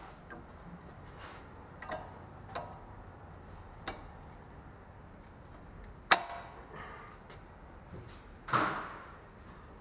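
Scattered metallic clicks and clinks of brake pads and caliper hardware being handled and fitted, with a sharp clank about six seconds in and a longer rattling clatter near the end.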